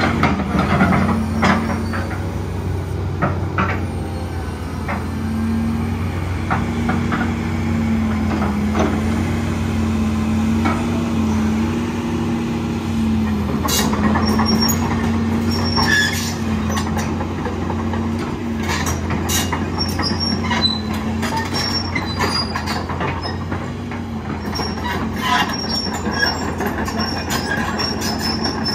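Case CX225SR tracked excavator working: its diesel engine runs steadily, the pitch wavering slightly as the hydraulics take load while the boom and bucket move. From about halfway, the steel tracks clank and give short high squeals as the machine travels and turns.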